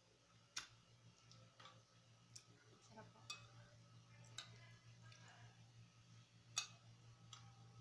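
Faint clinks and scrapes of a metal spoon and fork against a ceramic plate as rice and curry are scooped up, a few sharp clicks scattered through, the loudest a little before the end. A faint steady low hum runs underneath.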